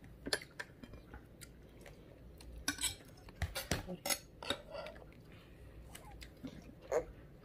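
A small metal fork clicking and scraping against a plate in scattered, irregular taps as a toddler spears pieces of fruit.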